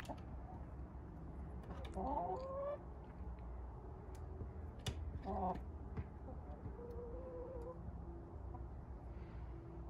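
Hens chattering contentedly as they settle to roost: a few soft, drawn-out calls, the louder ones about two seconds in and just past halfway, over a steady low background rumble.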